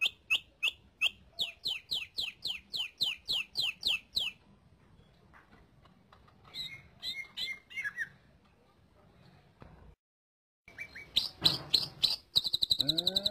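Cucak ijo (green leafbird) singing: a fast run of short, sharp falling chirps, three to four a second, then scattered chirps after a pause. About a second before the end a louder, steady buzzing trill begins.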